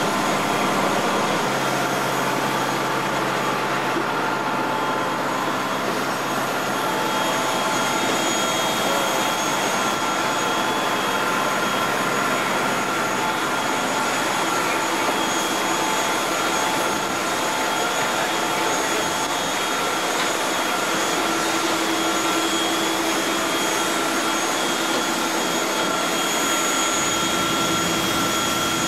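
Steady, loud jet airliner noise on an airport apron: a continuous hissing rush with several steady whining tones over it.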